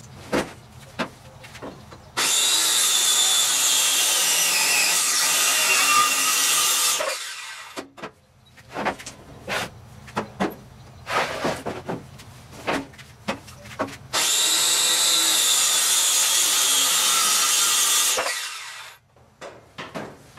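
Power saw cutting through a wooden board twice, each cut lasting about five seconds and stopping abruptly. In between come knocks and clatter of wood being handled.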